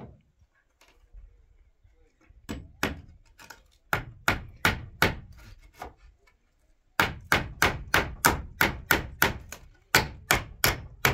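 Rapid, regular striking blows, like hammering, about three a second. They begin a couple of seconds in, stop for about a second midway, then carry on steadily.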